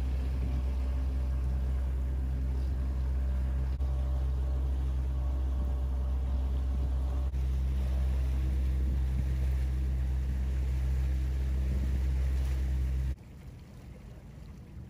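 Steady low hum of a boat's diesel engine, several pitched tones held without change. It cuts off abruptly about thirteen seconds in, leaving only faint wind and water.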